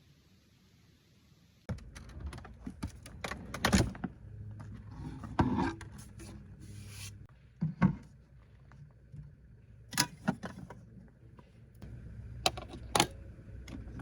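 Near silence, then from about two seconds in, rustling and scraping with a series of sharp knocks and clicks as objects are handled and set down.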